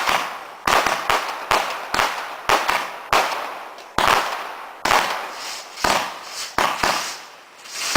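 Garden fireworks going off in a rapid series of sharp bangs, about one to two a second, each fading quickly after the burst.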